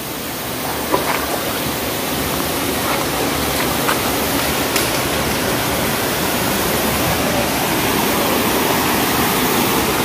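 Steady rushing of a shallow rocky river flowing over stones and small cascades, with a few faint clicks.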